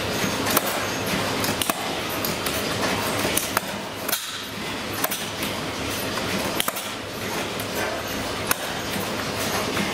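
Vintage stationary engines running: a steady mechanical clatter with irregular sharp knocks and clinks.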